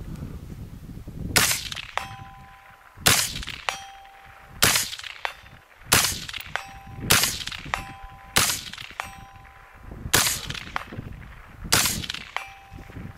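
AR-15 carbine firing slow aimed single shots, about eight, one every second and a half or so. Several shots are followed about half a second later by the ring of a steel target being hit downrange.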